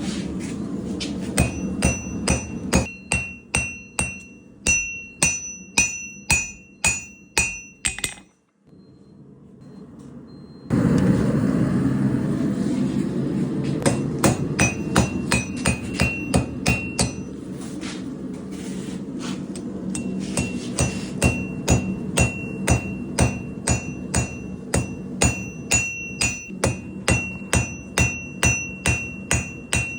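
Hand hammer blows on hot high-carbon damascus steel against an anvil, about two a second, each with a bright metallic ring, over a steady rushing noise. The hammering breaks off briefly about eight seconds in.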